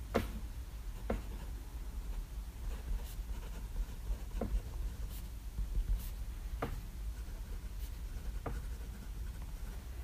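Pilot Custom 823 fountain pen with a medium nib writing on 90 gsm Rhodia paper: a soft scratching of the nib across the page with scattered light ticks as strokes begin and end.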